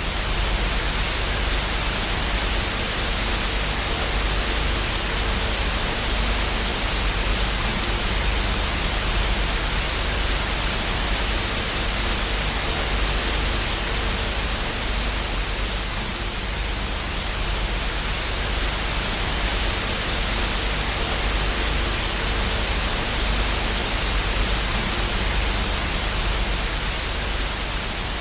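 Television static: the steady hiss of an analogue TV tuned to no signal, with a faint low hum underneath.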